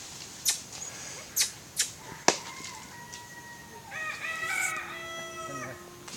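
A rooster crowing in one long, held call that starts a little after two seconds in. Before it come a few short crunches, as of dry leaves underfoot, and a sharp snap just as the crow begins.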